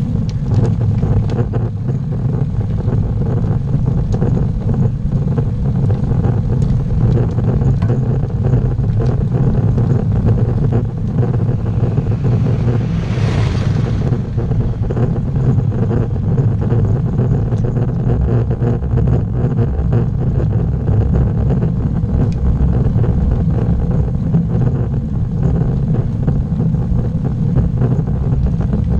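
Steady low rumble of tyre, road and wind noise picked up by a camera mounted on a road bike climbing a paved road, with a brief hiss about thirteen seconds in.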